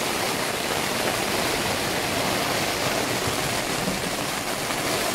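Heavy thunderstorm rain falling steadily on a tunnel tent's fabric, heard from inside the tent as a dense, even hiss.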